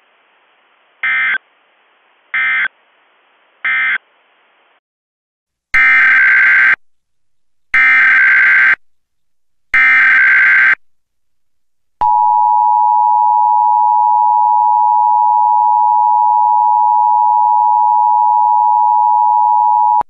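Emergency Alert System data tones: three short SAME end-of-message bursts, then three one-second SAME header bursts that open a new alert. These are followed by the EAS two-tone attention signal (about 853 and 960 Hz), which starts about twelve seconds in and holds steady and loud for about eight seconds.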